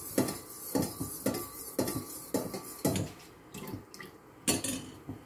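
Silicone spatula scraping and stirring a dry roasted flour-and-sugar mix in a nonstick frying pan, in a run of short strokes about twice a second.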